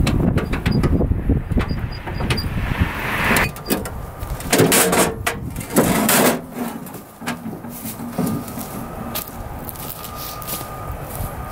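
Large fieldstones knocking and scraping against one another as they are set onto a full load in an ATV cargo box: a run of sharp knocks through the first half. From about eight seconds in, a faint steady hum.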